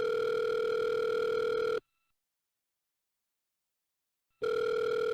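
Telephone ringing tone as heard by the caller: a steady, buzzy tone for about two seconds, a pause of over two seconds, then the tone again near the end.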